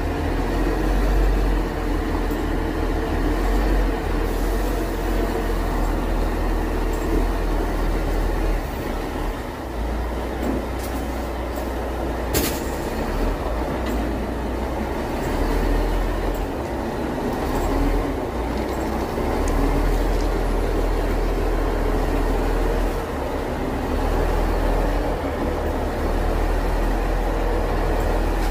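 Tower crane machinery running: a steady rumble with a low hum underneath, and a single sharp click about twelve seconds in.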